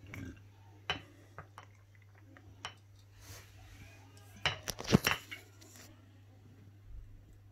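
Glass clinks and knocks as a glass olive-oil bottle and a small glass jar are handled on a countertop while oil is poured over cloves and salt: a few sharp clicks early, then a louder cluster of knocks about four and a half to five seconds in.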